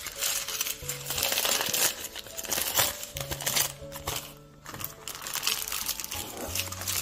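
Baking parchment crinkling as it is crumpled by hand and pressed into a ramekin, a dense crackle that eases off briefly partway through, over soft background music.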